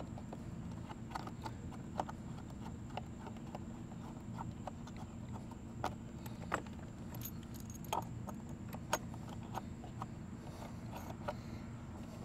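Scattered small metallic clicks and rattles of a coax cable connector being handled and screwed onto a coaxial surge arrestor, over a steady low hum.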